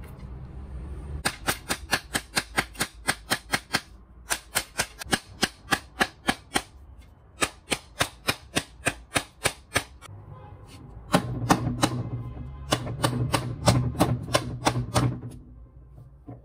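Blue plastic angle-grinder housing knocked rapidly and repeatedly against a workbench, about five sharp knocks a second in runs of two to three seconds with short breaks. From about eleven seconds in, a low hum sits under the knocks.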